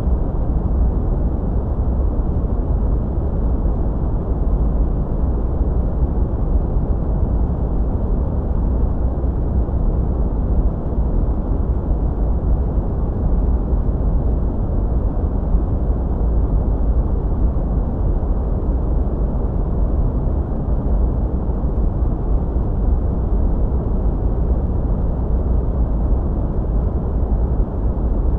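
Steady, deep rushing noise played as a sleep-aid sound, unchanging throughout, with its weight in the low end and little hiss at the top.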